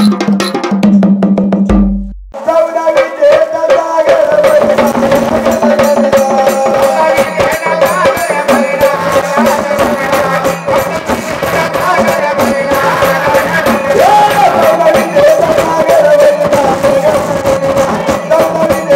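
Marathi devotional folk music: fast, steady hand percussion with a held, wavering melody line over it. The music cuts out briefly about two seconds in, then resumes.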